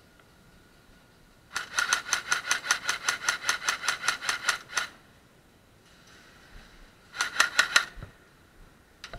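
Airsoft gun firing full-auto, about nine shots a second: a long burst of about three seconds, then a short burst of a few shots a couple of seconds later.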